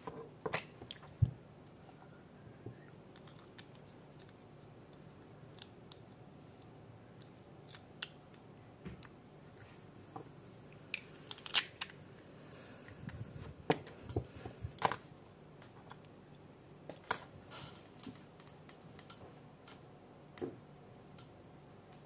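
Scattered small clicks and taps at uneven intervals, about a dozen clear ones: small hand tools and small die-cast toy car parts being handled and set down on a work surface during a wheel swap.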